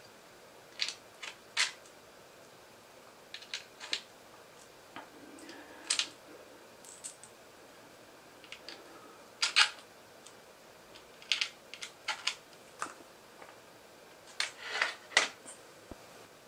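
Hard plastic clicks and taps as small 3D-printed pins and parts are picked up off a tile floor and pushed into the crossbow body's pin holes. The clicks come irregularly, in small clusters of two or three.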